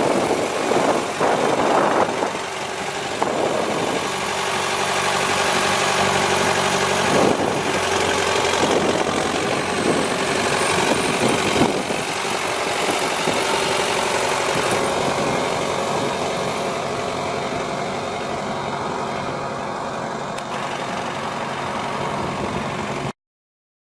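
Case 1394 tractor's diesel engine running at a steady idle, a little more uneven in the first few seconds. The sound cuts off suddenly near the end.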